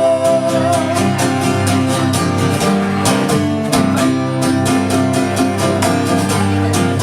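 Band music without singing: guitar over a steady beat, in an instrumental passage between refrains of the song.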